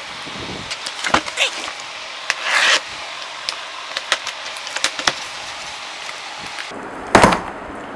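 A pen tip scraping and tearing through packing tape on a cardboard box: scattered clicks and crinkles over a steady hiss, with a short tearing rip about two and a half seconds in and a louder thump near the end.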